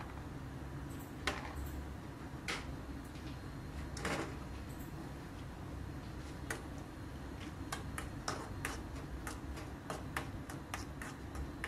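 Cashew nuts frying in ghee in a pan, giving irregular light clicks and taps, over a low steady hum.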